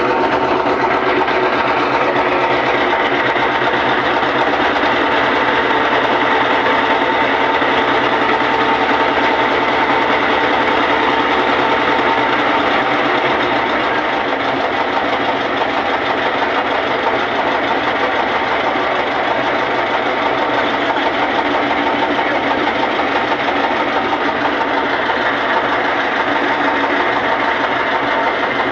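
Motor boat's engine running steadily under way, a fast even mechanical rattle.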